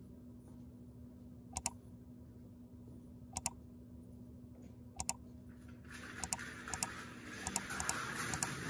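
Sharp double clicks, three of them about a second and three-quarters apart, then from about six seconds a rising hiss carrying a run of quicker clicks, over a steady low hum.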